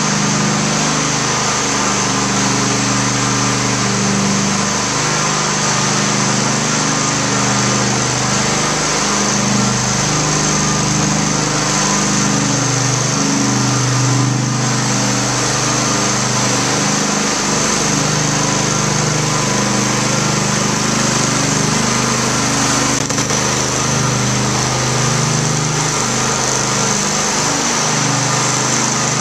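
Propane-powered floor burnisher's small engine running steadily as its pad spins over a tile floor, a constant hum with a high hiss on top.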